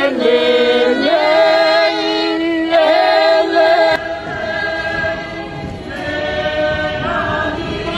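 A group of voices singing a slow, choir-like song in harmony, holding long notes. It gets quieter about halfway through.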